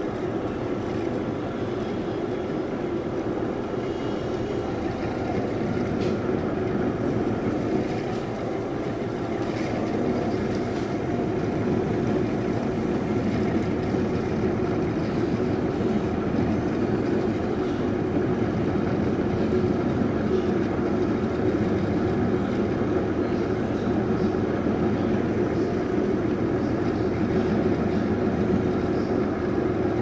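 Bedini SG monopole pulse motor built from a ceiling fan, running with a steady, rapid pulsing hum as its magnet wheel turns. It grows a little louder over the first ten seconds or so as the motor speeds up after the supply voltage is raised.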